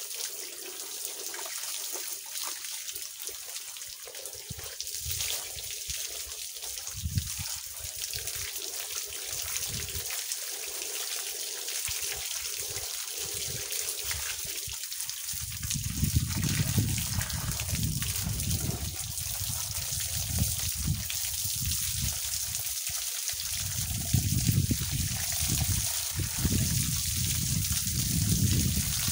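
Steady stream of water pouring from a garden hose and splashing down. About halfway through, and again a few seconds before the end, the splashing turns louder and fuller as the stream lands on a person's body and wet sarong.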